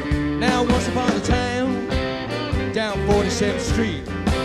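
A 1960s-style soul record: a man singing over guitar and a steady drum beat.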